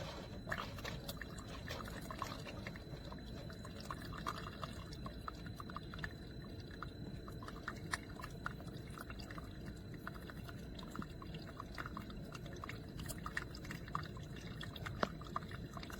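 Single-serve coffee maker brewing, coffee pouring and dripping into a mug in many small irregular drips over a steady low background noise.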